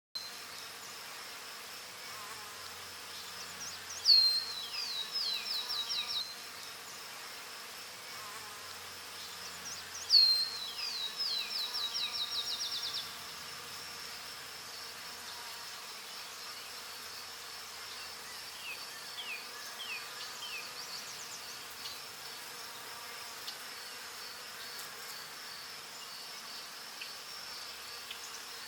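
Steady high-pitched insect chorus, with two louder runs of quick repeated notes about 4 and 10 seconds in, and fainter pulsed notes later.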